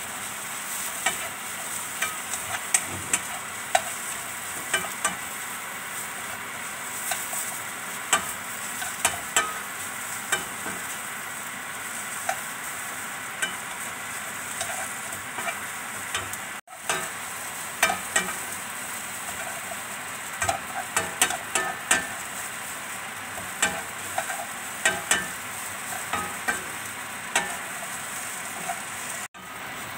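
Tempeh, shallots and chili sizzling in oil in a nonstick wok, with frequent sharp clicks and scrapes of a spatula stirring them. The sizzle cuts out for an instant twice.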